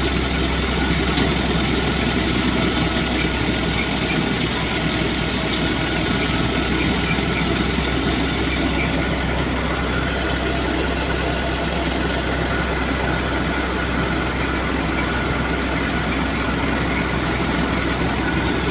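A mustard-threshing machine and the engine that drives it, running steadily under load with a constant hum and clatter and no change in pace.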